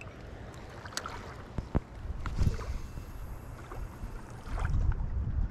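Wind buffeting the microphone as a low rumble that swells near the end, with a few sharp clicks and taps in the first half.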